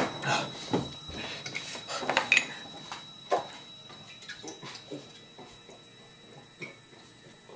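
A run of sharp clinks and clatters of hard objects, like dishes or utensils being handled, dense for the first three seconds or so and then sparser and fainter.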